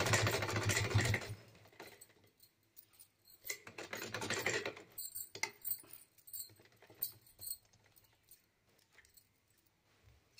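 Sewing machine stitching a seam in a fast, steady run that stops about a second in. Cloth rustles as the fabric is lifted off the machine, followed by scattered small clicks and taps of handling.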